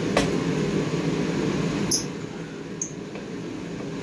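Steady rushing hum of a workshop heater, dropping slightly after about two seconds, with a few sharp clicks: one just after the start, one near two seconds and one shortly after.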